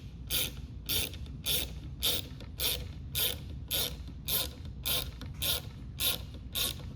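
Ratchet wrench clicking through short back-strokes, just under two a second, as a mount's tension bolt is tightened.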